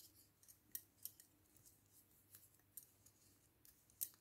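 Faint, irregular clicking of double-pointed knitting needles tapping against each other as stitches are worked in the round on a set of five needles, the sharpest clicks about a second in and near the end.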